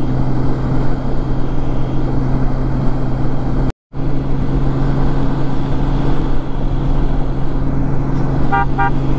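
Honda Gold Wing motorcycle riding at a steady speed: an even engine hum under road and wind noise. The sound drops out for a split second just under four seconds in, and two short beeps come near the end.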